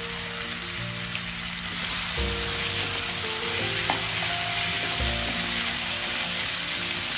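Freshly washed chopped French beans sizzling in hot oil in a nonstick pan with potatoes and masala, stirred with a wooden spatula; a steady frying hiss.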